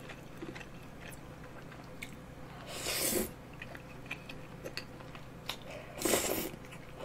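Close-miked eating of long, chewy rice cakes in creamy carbonara tteokbokki sauce: soft wet chewing clicks, with two short, louder slurps about three and six seconds in as the long strands are sucked into the mouth.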